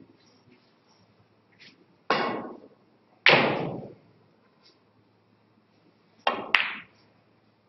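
Snooker balls and cue knocking on a quiet table: two single sharp knocks with short ringing tails, then near the end a shot, the cue tip striking the cue ball and a quarter of a second later a hard click of the cue ball hitting a red.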